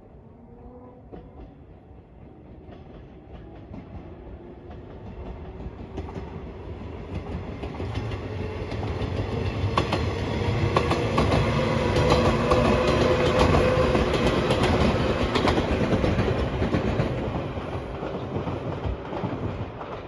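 A JR 115-series electric train passing at speed, its wheels clacking over the rail joints. The rumble swells as it approaches, is loudest as it goes by in the middle, and fades away near the end.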